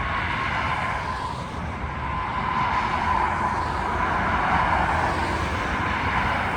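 Car driving on a busy road: steady tyre and engine road noise with a faint whine, swelling a little about halfway through.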